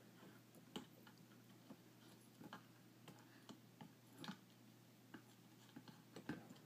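Near silence with a few faint, scattered clicks and taps: a pencil and a hermit crab knocking against a shell.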